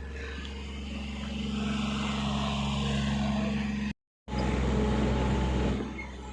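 Backhoe's diesel engine running, building up to a higher, louder working pitch about a second in and holding there. A brief gap of silence falls just before the middle, and the engine eases back down near the end.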